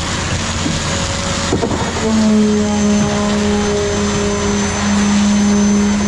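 Concrete pump's engine running at steady high revs, a loud, steady drone, while concrete is pushed through the pump hose. The drone grows louder about two seconds in.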